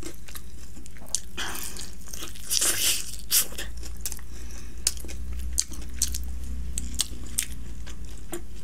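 Close-up biting and chewing of a sauced hot and spicy fried chicken wing: crunchy bites and pulling meat off the bone, heard as many short sharp clicks with a few longer crunching stretches in the first few seconds.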